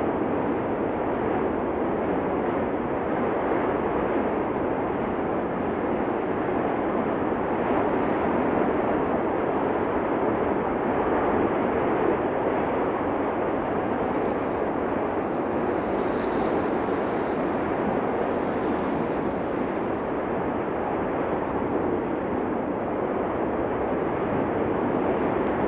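Continuous rushing roar of the erupting Cumbre Vieja volcano, steady and unbroken.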